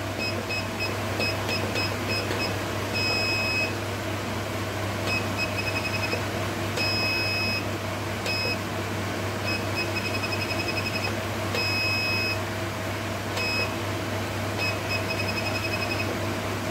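Tea and coffee vending machine's keypad beeper sounding as its buttons are pressed to adjust settings. Short beeps come in quick runs where values are stepped up or down, with a few longer single beeps between them, all at one high pitch.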